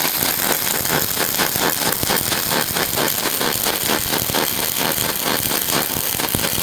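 Robotic arc welder running: a steady, dense crackle of the welding arc, made of many rapid irregular snaps.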